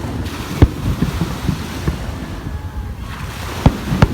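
Fireworks bursting: several sharp bangs, the loudest about half a second in and twice near the end, over a steady low rumble with wind on the microphone.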